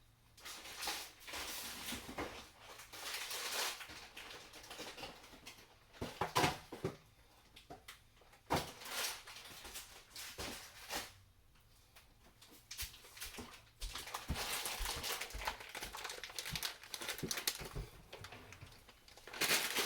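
Food packages being handled: rustling and crinkling with irregular knocks and clicks as items are taken out of a box and set down.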